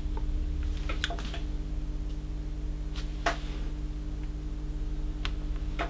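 Steady low electrical mains hum, with a few faint clicks and taps scattered through it.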